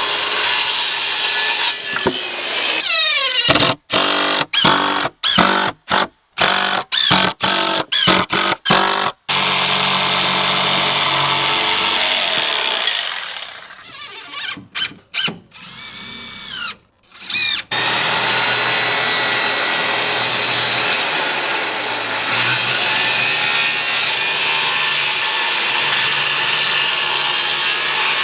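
Corded circular saw cutting wide rough-sawn lumber boards, running steadily under load in long stretches. In between, it comes in many short runs with sudden stops, and a quieter stretch of short power-tool bursts that rise and fall in pitch sits in the middle.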